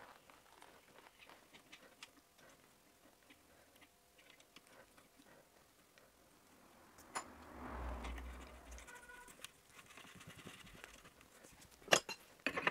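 Small metallic clicks and a brief scraping rustle as the steel adapter of a diesel injector removal tool is screwed on by hand and seated on the injector: one sharp click about seven seconds in, the scrape just after, and a few clicks near the end, with long quiet stretches between.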